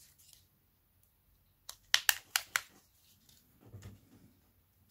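Handling noise from a smartphone and hands on a silicone repair mat: a quick run of about five sharp clicks and taps about two seconds in, then a softer low bump a little later.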